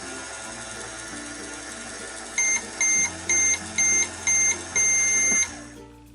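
Toy microwave beeping over background music: five short high beeps about half a second apart, then one longer beep, marking the end of its cycle.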